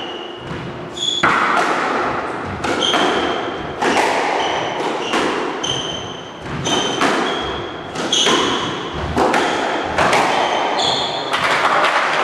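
Squash ball being struck and hitting the court walls about once a second, echoing in the court, with short squeaks of court shoes on the wooden floor between the hits.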